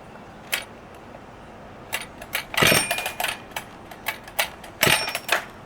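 Husqvarna 257 chainsaw being pull-started: two hard yanks on the recoil starter about two seconds apart turn the engine over without it catching, among sharp clicks and knocks from handling the saw. The pulls are stiff against the engine's very high compression.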